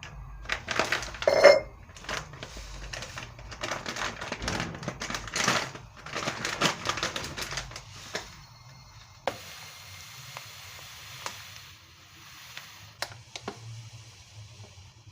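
Close-up rustling and clicking of objects being handled, dense for about eight seconds, then a quieter steady hiss with a few sharp clicks.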